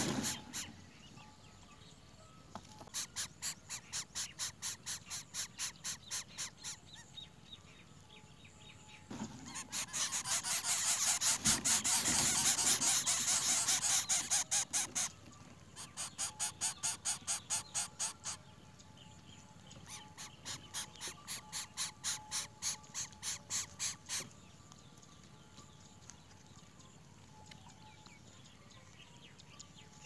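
Greater coucal nestlings begging at the nest with the parent present: bouts of rapid, rhythmic, high calls at about five a second, each bout lasting a few seconds with short pauses between. The loudest and densest bout comes in the middle.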